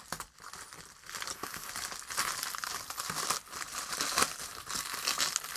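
Scissors cutting open a plastic bubble mailer, the plastic crinkling and crackling irregularly as it is cut and handled.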